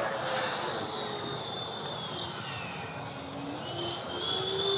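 Electric ducted fans of a Freewing MiG-29 RC jet whining in flight, the pitch falling over the first few seconds and rising again about four seconds in.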